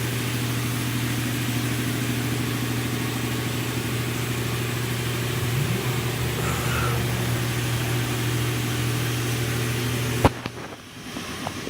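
A steady low mechanical hum with an even hiss over it. It cuts off with a sharp click about ten seconds in.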